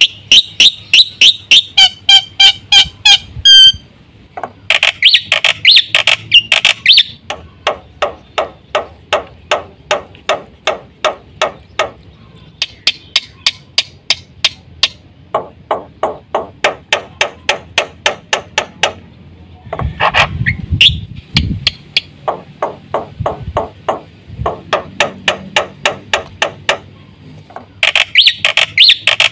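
Black-winged myna (jalak putih) in full, busy song: long runs of loud, sharp repeated notes, about three to five a second, broken by harsher chattering phrases.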